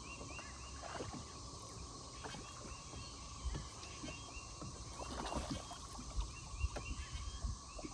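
Fishing-boat ambience on a lake: a steady faint hum, repeated short chirps and scattered light knocks and clicks.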